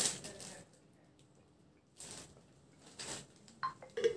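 A copper water bottle being drunk from and then handled. A gulp of water comes at the start, followed by a few light taps and metallic clinks near the end as the bottle and its cap are handled, one with a short ring.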